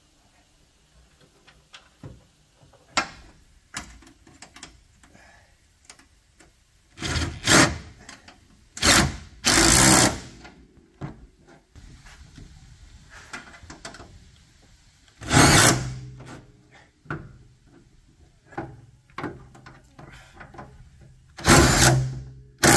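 Power drill-driver running in about four short bursts of roughly a second each, driving the bolts and screws that hold the metal floor plates, with scattered clicks and knocks of parts and tools in between.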